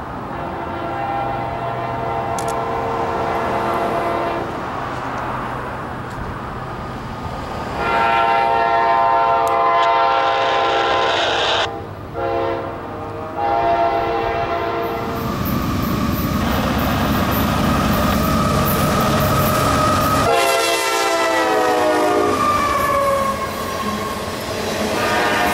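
CSX diesel freight locomotive blowing its air horn, several notes sounding together, in the grade-crossing pattern of two long blasts, a short and a long, as it approaches. The locomotive then passes close with a loud engine rumble, sounds another blast that drops in pitch as it goes by, and the freight cars follow with wheels clattering on the rails.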